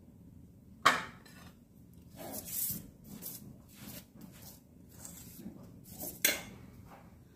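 Spatula and steel spoon scraping and clinking against a griddle as ghee is spread over a cooking paratha. There are two sharp knocks, about a second in and again about six seconds in, with softer swishing scrapes between.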